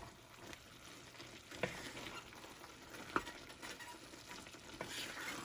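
Vegetables sizzling faintly in a pan as they are stirred with a spatula, with a few light knocks of the spatula against the pan.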